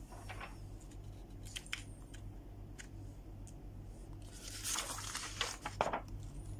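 Paper sheet being handled and shifted, with a few light clicks and a soft rustle about five seconds in, over a low steady hum.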